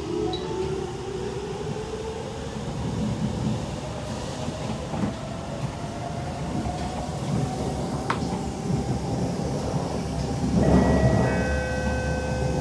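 Siemens C651 metro train running, with its traction motor whine rising slowly in pitch as it gathers speed over the rumble of wheels on rail. There is a single sharp click about eight seconds in, and the noise grows louder near the end, with several steady tones.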